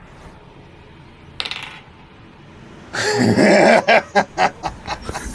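A small plastic twenty-sided die clatters briefly on a hard floor about a second and a half in. About three seconds in comes a loud voice, followed by bursts of laughter.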